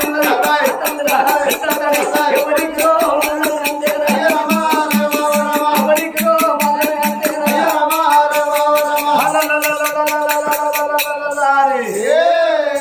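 Oggu katha singing: voices holding long sung notes over a fast, even, jingling beat of hand percussion played with the oggu drum. The percussion stops about eleven seconds in, leaving a voice sliding down and back up in pitch.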